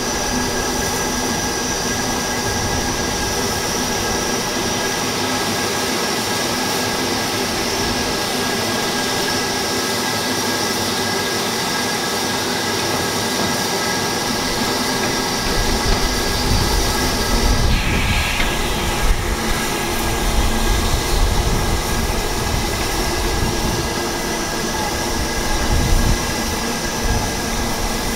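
Stationary LMS Black Five 4-6-0 steam locomotive 'Eric Treacy' letting off steam in a loud, steady hiss. An uneven low rumble joins about halfway through.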